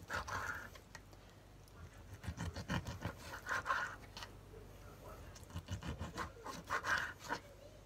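Kitchen knife sawing through raw chicken on a plastic cutting board, the blade scraping and tapping against the board in three bouts of quick strokes.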